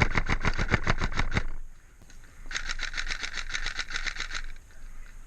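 Airsoft rifle firing full-auto, about nine shots a second, in a burst that stops about one and a half seconds in. After a short pause a second full-auto burst of about two seconds follows, lighter and without the low thump of the first.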